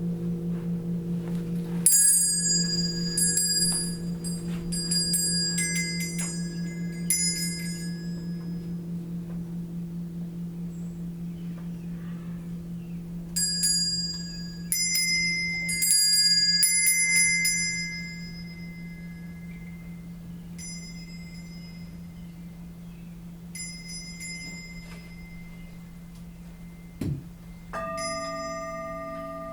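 A low, sustained metal singing-bowl tone hums with a slow wavering beat while small high-pitched chimes ring in bright clusters, from about two to eight seconds in and again from about thirteen to eighteen seconds, then more sparsely. Near the end a second, higher bowl-like tone is struck and rings on.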